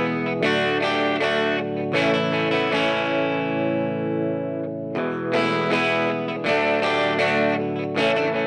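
Background music of plucked notes and chords, each note ringing on as the next is struck.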